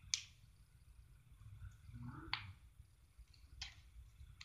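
Three small sharp clicks, the first the loudest: plastic beads picked out of slime dropping into a small plastic cup.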